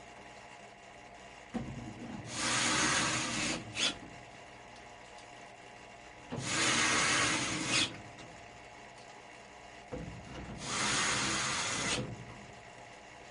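Three rubbing strokes of a tool worked against a surface during furnace servicing, each lasting about one and a half to two seconds and coming about four seconds apart, with a small knock at the start or end of each.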